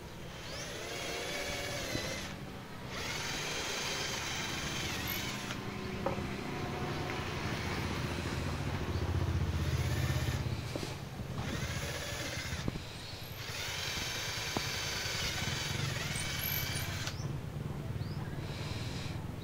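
Electric hand drill running in several runs with short pauses, its motor pitch shifting as it works, drilling pilot holes for wood screws.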